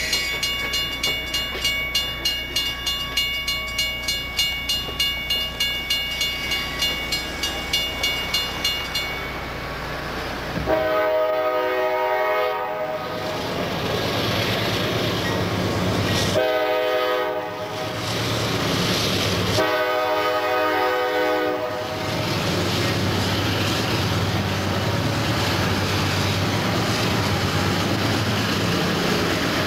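Freight cars rolling past a grade crossing while the crossing bell rings rapidly and steadily. After a break, a CSX diesel locomotive sounds its horn three times, the last blast the longest. Its engine rumble follows as it passes over the crossing.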